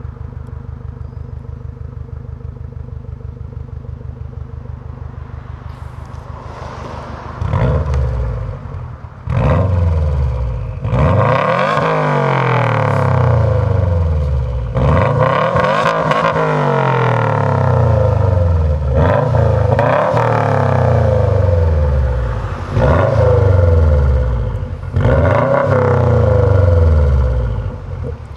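2015 Subaru WRX STI's turbocharged 2.5-litre flat-four running through a Borla aftermarket exhaust: it idles with a steady, pulsing burble, then from about seven seconds in it is revved repeatedly, each rev climbing and falling back to idle, a few held high for a couple of seconds.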